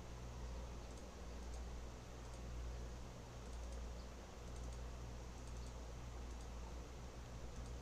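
Faint, scattered computer keyboard and mouse clicks over a low, steady electrical hum.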